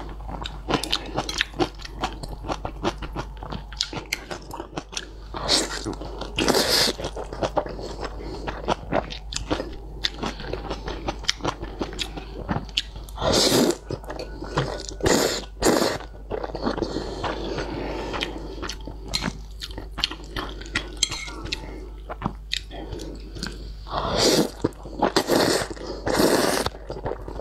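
Close-miked eating of spicy fire-chicken noodles: steady wet chewing and smacking, broken by several loud slurps as mouthfuls of noodles are sucked in, a few near the middle and a cluster near the end.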